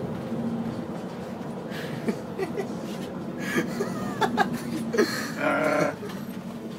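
Soft chuckling and laughter, with short breathy vocal sounds, over a steady low hum.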